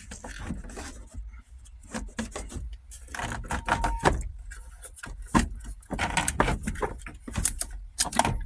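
Irregular clicks, knocks and rattles of a gear shifter assembly being wiggled and worked out of a van's centre console, catching on the surrounding trim and parts.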